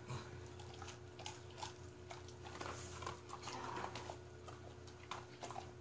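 Dog chewing a food reward: faint irregular clicks and soft smacking mouth sounds over a low, steady hum.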